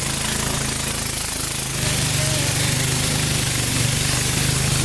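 Engine of a long wooden river boat running steadily under way, with the hiss of water spray from its propeller wash; it runs a little harder from about two seconds in.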